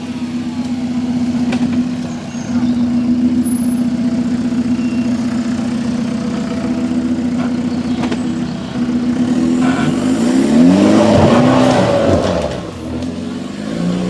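Jeep Wrangler's engine pulling steadily at low revs as it crawls up a steep dirt trail, then revving up and down several times about two-thirds of the way through.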